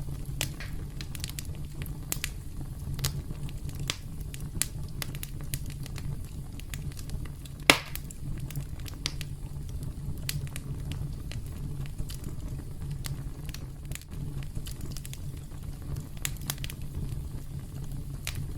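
Campfire burning with a steady low rumble and scattered crackles from the burning wood, one louder pop a little before halfway through.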